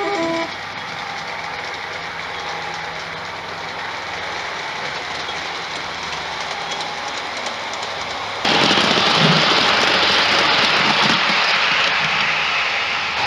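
LGB garden-scale model train running along its outdoor track, a steady rolling noise. From about eight seconds in it turns suddenly louder and more rushing as the wagons run close by. There are brief tones at the very start.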